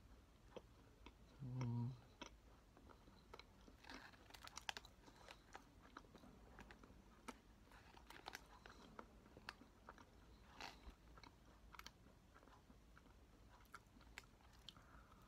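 Faint close-up biting and chewing of a thick macaron coated in crunchy cookie crumbs, with many small crunches and mouth clicks. A short hummed 'mm' comes about one and a half seconds in.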